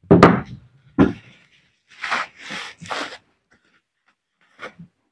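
A demolition breaker's greasy internal parts being handled and wiped with a cloth. There is a sharp knock near the start, another about a second in, then a few short scrubbing swishes about two to three seconds in and a couple of faint ticks near the end.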